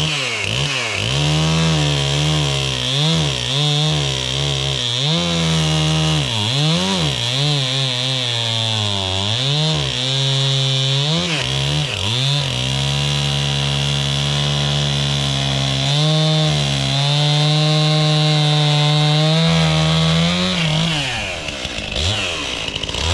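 Two-stroke gas chainsaw bucking an old cherry log. The engine revs up and down over and over, then holds high and steady for a long stretch and drops back toward idle near the end.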